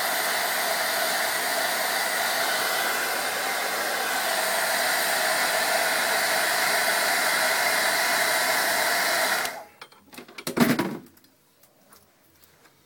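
Hair dryer blowing steadily, heating the iPhone's front glass to soften the glue under it, then switched off abruptly about two-thirds through. A short clatter follows soon after.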